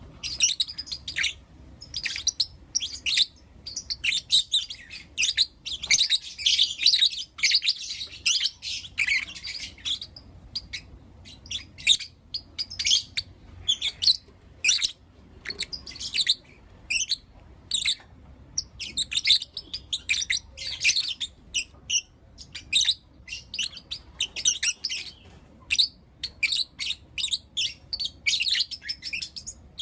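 Lovebirds chirping: sharp, high-pitched chirps in quick runs, densest in the first ten seconds, then in shorter, more spaced bursts.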